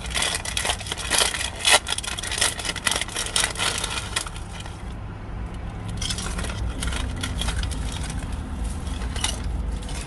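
Crunching of kettle-cooked potato chips being chewed: a rapid run of crisp cracks with a short pause about halfway, over a low steady rumble.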